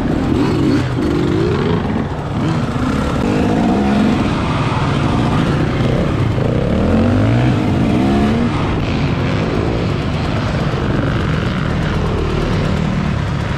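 Enduro motorcycle engine revving, its pitch rising and falling again and again with the throttle.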